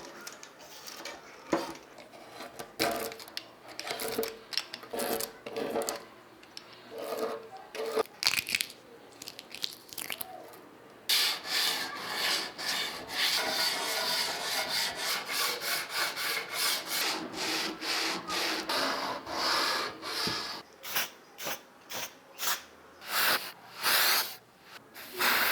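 Hand scrubbing or abrading of a rusty typewriter part in quick back-and-forth strokes, dense and steady from about eleven seconds in. Before that there are scattered clicks and lighter rubbing.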